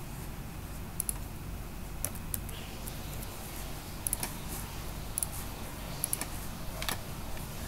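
Computer keyboard keystrokes and mouse clicks: about eight short, sharp clicks, some in quick pairs, scattered over a low steady hum.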